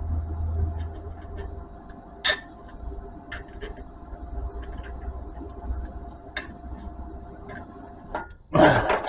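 Welding machine humming steadily, with scattered sharp clicks and crackles as a first tack weld is attempted on an exhaust pipe, then a short loud crackling burst near the end. The arc is struggling because the ground clamp is too far from the weld.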